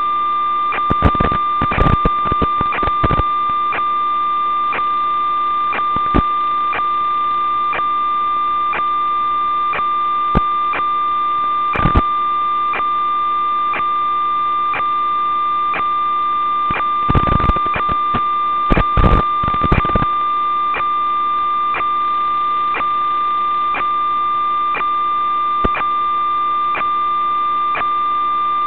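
Steady electronic whine and hiss from an analog 5.8 GHz FPV video link's audio channel, with soft ticks a little under twice a second. Bursts of crackling static come about a second in, around the middle, and again a little later.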